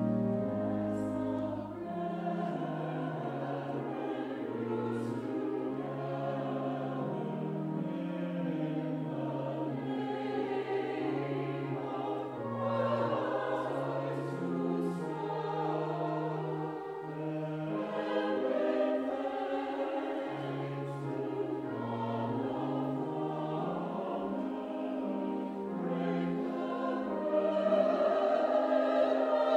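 Church choir singing with keyboard accompaniment, sustained bass notes moving in steps beneath the voices, swelling louder near the end.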